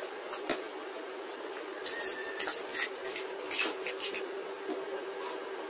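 Crisp pani puri shells being cracked open and eaten, heard as short, scattered crackles and crunches, many of them clustered in the middle, over a steady low hum.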